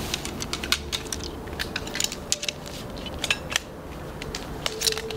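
Irregular light clicks and clinks of camping gear being handled, a dozen or more sharp ticks scattered through the few seconds.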